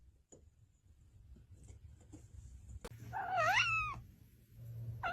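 A cat meowing twice, about three seconds in and again near the end, each call bending up and down in pitch after a near-silent start.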